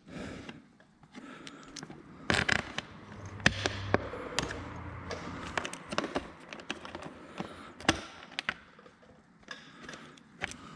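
Hand tools and bolts clicking and tapping against the radiator brace as bolts are fitted. Scattered sharp clicks and knocks, with a low hum through the middle.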